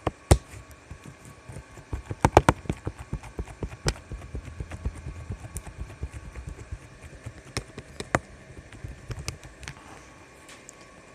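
Fingers poking and squishing sticky green slime, making rapid wet pops and clicks. The loudest cluster of pops comes about two seconds in, and they thin out near the end.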